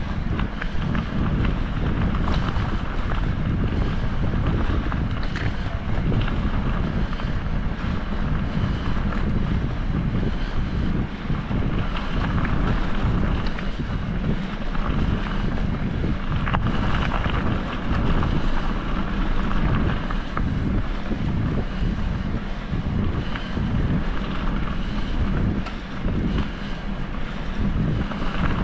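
Wind buffeting the microphone: a steady, dense rumble with a rushing hiss above it.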